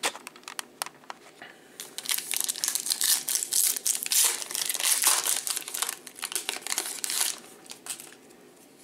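Foil wrapper of a Panini USA Baseball Champions hobby pack crinkling and tearing as it is ripped open by hand. A few light crackles come first. The crinkling is loudest from about two to seven seconds in, then it dies away.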